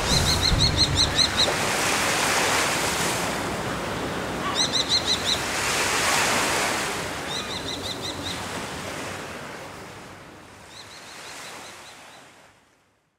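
Sea surf washing in slow swells, with a bird calling in quick runs of sharp, high repeated notes, four times. The sound fades out near the end.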